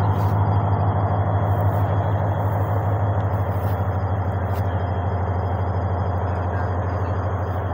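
A steady low engine drone with a fast, even pulse.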